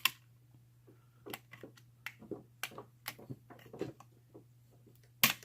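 Steel picking tools clicking and scraping inside a two-lever mortise lock as the overlifter works the levers and the tension tool pushes on the bolt. There is a sharp click just after the start and another near the end, with light ticks and scrapes between.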